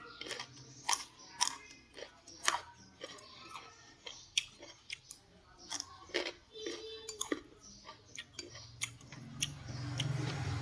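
A person chewing and crunching food, with irregular sharp clicks and smacks of the mouth. A low hum comes in near the end.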